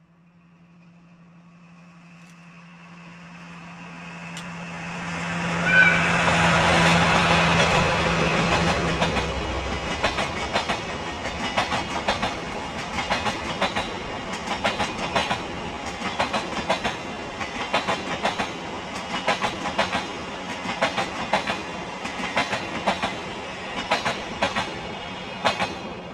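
A diesel-hauled passenger train approaching and passing: a steady low diesel engine drone swells over the first few seconds, with a short whistle blast about six seconds in. It is followed by the regular clickety-clack of the carriages' wheels over rail joints, which carries on to the end.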